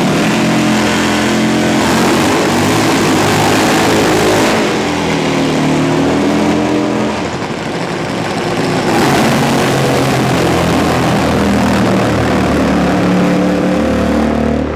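Drag-racing motorcycle engines running loud and revving, the pitch rising and falling, with hiss from spinning rear tyres during burnouts at the start line.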